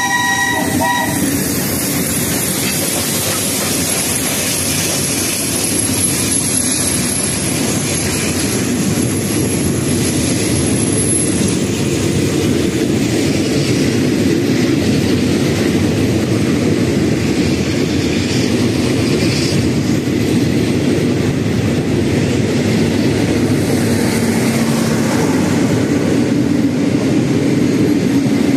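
Steam locomotive No. 824's multi-tone whistle dying away about a second in, followed by a steady, loud rushing and rumbling noise from the locomotive and its train.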